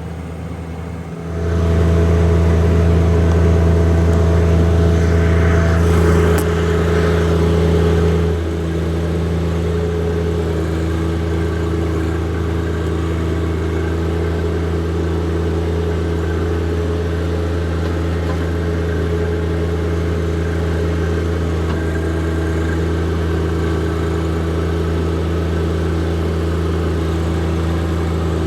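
John Deere 1025R compact tractor's three-cylinder diesel engine running steadily at working speed while brush hogging. It gets louder about a second in and eases off slightly around eight seconds in.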